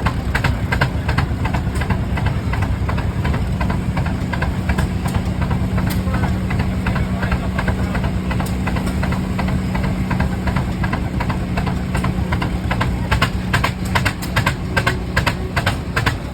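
Rumely OilPull tractors' slow-running two-cylinder engines chugging under a steady rhythm of sharp exhaust beats, with a steady low hum that fades near the end, while they belt-power a sawmill.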